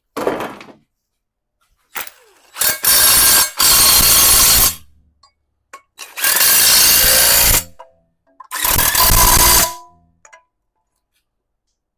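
A handheld power tool runs in four short goes of about a second each, the first two back to back, as it drives the motor mount bracket bolts into the engine block. A couple of light clicks come before it.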